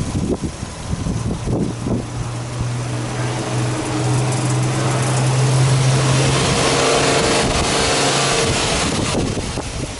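Subaru Impreza S-GT's turbocharged 2.0-litre flat-four revved with no load: engine speed climbs slowly over several seconds, is held, then drops back to idle about eight and a half seconds in.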